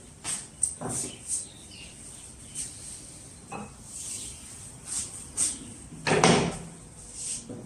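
Irregular short scrapes and knocks of hand work, about a dozen of them, the longest and loudest about six seconds in; a faint steady high-pitched tone underneath.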